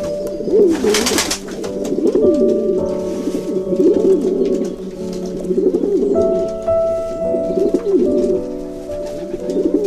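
Pigeons cooing repeatedly, low rolling coos one after another, over background music with long held notes. A brief rustling burst about a second in.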